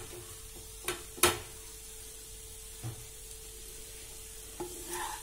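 Fried rice sizzling faintly in a non-stick pan, over a steady low hum, with two sharp taps about a second in and a few softer knocks later.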